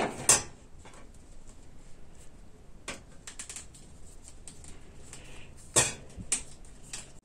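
Small metallic clicks and light scraping of a screwdriver prying apart the strands of a seven-strand flexible steel wire rope, with a few sharper clicks: one at the start, one about three seconds in, and two around six seconds.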